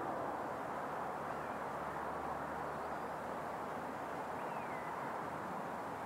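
Steady outdoor background noise with two faint, short chirps, one about a second in and one near the end.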